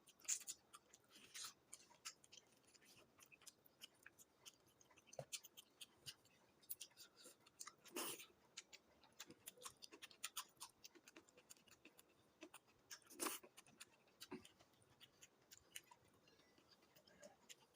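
Faint eating sounds: many scattered soft clicks of chewing and handling food, with a few louder brief crunches or rustles.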